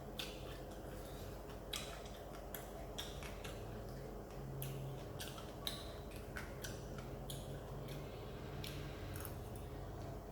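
Crunching of someone chewing crispy deep-fried fish: irregular sharp crackles, a few a second, over a low steady hum.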